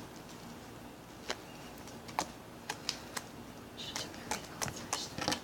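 Sticky fluffy slime being kneaded and pulled apart by hand, giving a scattered run of soft, irregular clicks and pops.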